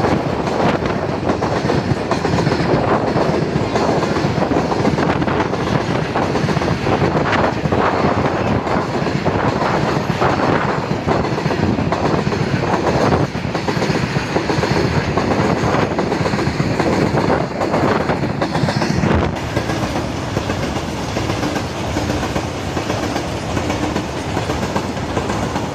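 Freight train of tank wagons rolling past close by: a steady rumble of wheels on rails with rapid, irregular clacking. It gets somewhat quieter about three-quarters of the way through.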